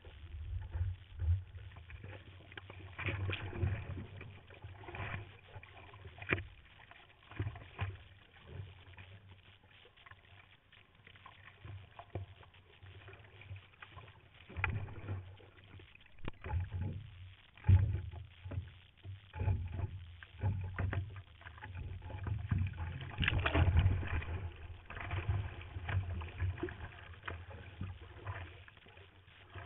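Sea water splashing and sloshing against a water-level camera on a surfboard paddling through the surf, in irregular surges. One sharp splash comes about 17 seconds in, and the loudest surge is a few seconds later.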